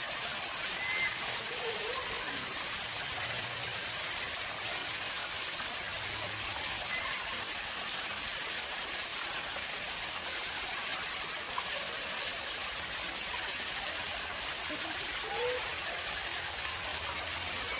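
Water flowing steadily into a man-made pond, a constant splashing rush with no change in level.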